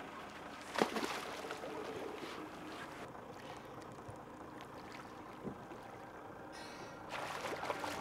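Diver dropping from a boat into the sea: one splash about a second in, then faint water sounds at the surface, growing louder near the end as he goes under.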